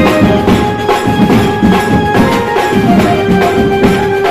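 A band playing loud festival music: an electronic keyboard carries a melody of held notes over a steady, fast beat of drums and percussion.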